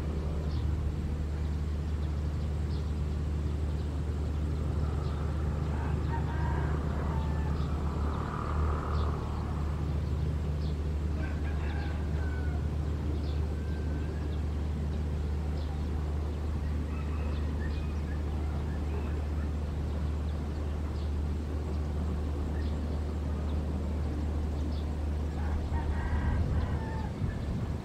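A rooster crowing several times, with chickens clucking, over a steady low rumble.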